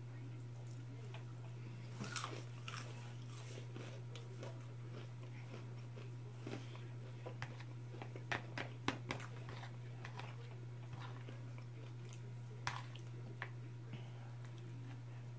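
Close-up eating sounds: a person biting and chewing crispy fried chicken, with scattered sharp clicks and crunches, thickest in a cluster about eight to nine seconds in. A steady low hum runs underneath.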